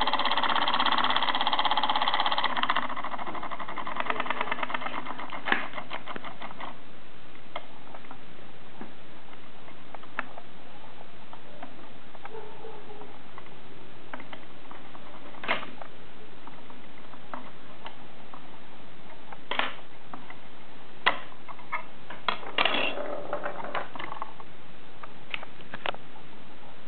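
A homemade solenoid motor made from a Quantum Fireball hard drive's head actuator arm, pulsed by a relay switch once per turn: it clicks and buzzes rapidly, then slows over a few seconds until the clicks die out. Scattered single clicks and knocks follow, with a short burst of clicking near the end.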